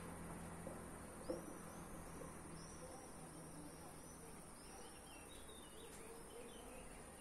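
Faint evening outdoor ambience: a small bird singing a quick run of about a dozen high, arched chirps, followed by a few lower twittering notes, over a steady high-pitched hiss.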